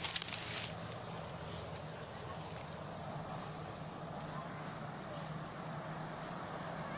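An insect buzzing steadily at one high pitch, stopping shortly before the end, over a faint low hum. There is brief rustling at the start.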